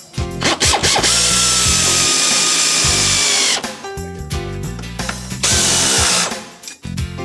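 A power tool runs steadily for about two and a half seconds, then runs again briefly near the end, over background music.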